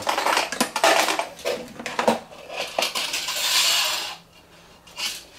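Wire basket hooks clinking and rattling against a spring-loaded tension rod as the hanging baskets are taken off it, with a longer scraping sound about three seconds in.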